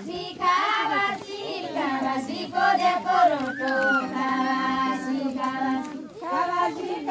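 Several women's voices singing a Deuda folk song together as they dance in a circle, with one note held for a few seconds in the middle of the phrase.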